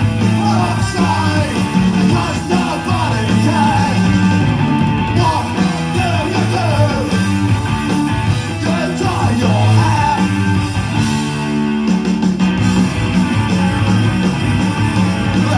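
Punk rock song playing loud and steady, with electric guitar, bass and drums under a sung vocal.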